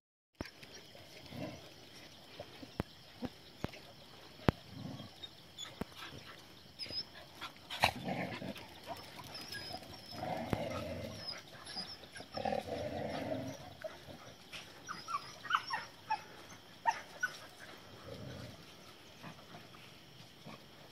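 Several dogs playing and chasing, with spells of growling and barking about a second long, the longest around the middle, and a few short high yelps later on.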